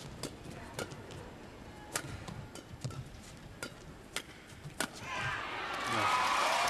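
Badminton rally: sharp racket hits on the shuttlecock, roughly one a second. About five seconds in, the arena crowd swells into cheering and shouting as the rally ends.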